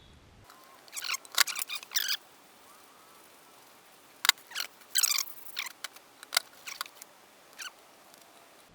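Short metallic clicks and squeaks from parts being handled and fitted together while the AC compressor pulley assembly is put back together, in a cluster about a second in and another from about four to seven seconds in.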